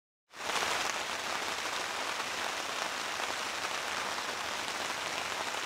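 Heavy rain falling on a tent, a dense, steady hiss that cuts in suddenly from silence right at the start.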